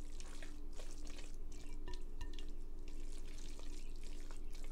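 Silicone spatula stirring a thick, creamy shredded-chicken mixture in a glass bowl: irregular wet squishing and scraping strokes, over a steady low hum.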